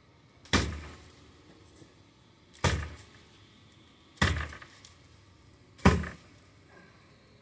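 Axe chopping at the base of an oleander: four sharp strikes about one and a half seconds apart, each dying away quickly.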